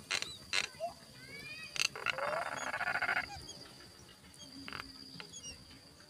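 Yellow-vented bulbul nestlings begging: a few sharp clicks and short rising calls, then, about two seconds in, roughly a second of dense raspy chattering. A steady high whine runs underneath.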